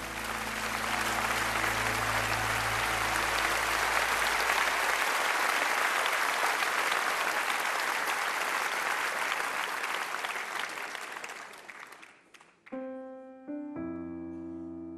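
Concert audience applauding after a song, a steady clapping that dies away about twelve seconds in. A piano then starts playing, with two struck chords about a second apart, left ringing.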